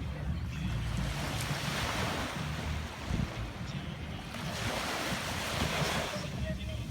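Ocean waves breaking and washing in, swelling twice, over a low rumble of wind on the microphone.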